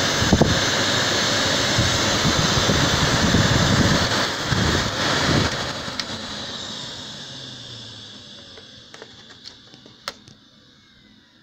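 Electrolux Royal 780 vacuum cleaner running with a steady rushing whine, then switched off about five seconds in, its motor winding down and fading away over several seconds. A few light clicks near the end.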